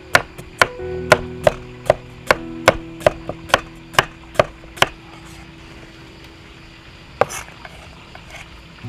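Cleaver chopping a carrot into slices on a wooden chopping block: a run of sharp, even knocks, about two and a half a second, for some five seconds. After a pause there is one more knock and a few faint taps near the end.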